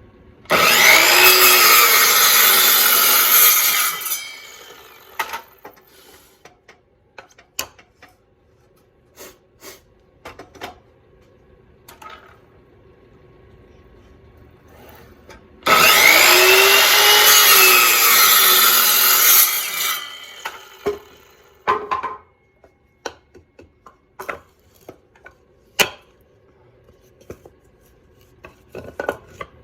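Power saw cutting through wood twice, each cut about four seconds long, the motor's pitch rising and then falling during the cut. Between the cuts, short knocks and clatter of wood pieces being handled.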